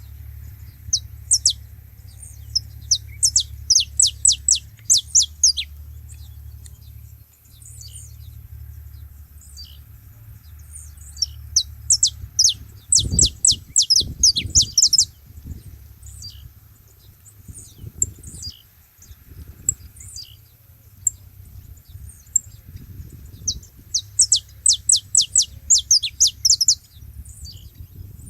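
Saffron finches calling together: runs of quick, high, downward-sweeping chirps in three bursts, with scattered single chirps between, over a steady low hum.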